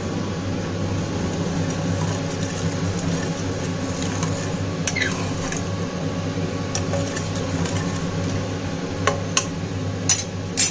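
A steel ladle stirring milk in a steel pot, with wet sloshing and scraping over a steady low hum. Near the end there are several sharp clinks of the ladle against the pot.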